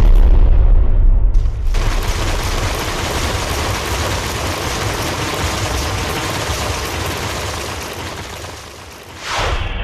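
Stage show soundtrack: bass-heavy music cuts off about a second and a half in, giving way to a dense, steady crackling noise effect that slowly fades, with a brief whoosh near the end.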